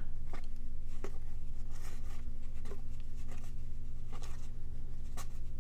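Stiff cardboard baseball cards being thumbed through by hand, their edges sliding and flicking against one another in short, soft scrapes and ticks at irregular intervals, over a steady low hum.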